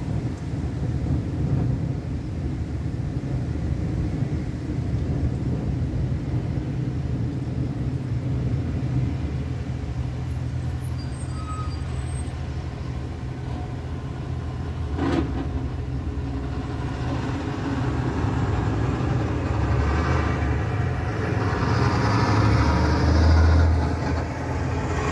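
Train rumbling steadily as it passes, growing louder near the end, with a single sharp click about fifteen seconds in.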